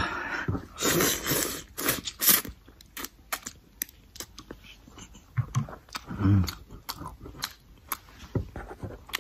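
A man eating noodles close to the microphone: slurping, then wet chewing and mouth smacks, with a few brief low voice sounds partway through.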